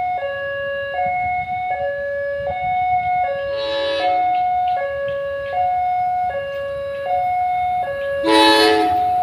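Electronic two-tone warning alarm of a railway level crossing, alternating steadily between a lower and a higher tone about every three-quarters of a second. Two short, louder noisy bursts break in, about four seconds in and near the end.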